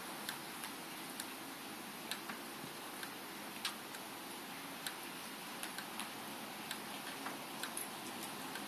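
Steady hiss of rain during a thunderstorm, with irregular sharp ticks of drops striking a hard surface, about one or two a second.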